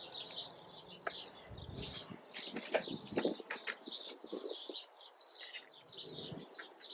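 Many small birds chirping continuously, with a few light clicks and knocks in between.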